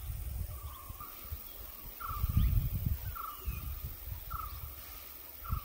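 An animal calling a short, slightly falling note over and over, about once a second, with low rumbling noise underneath that swells a little past the middle.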